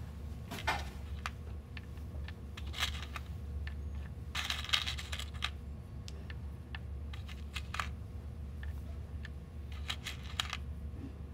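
Small metal Purdue Pegboard pins clinking and rattling as fingers pick through a pile of them, with irregular light clicks as pins are set one at a time into the board's holes. The rattling comes in bursts about a second in, near the middle, and near the end.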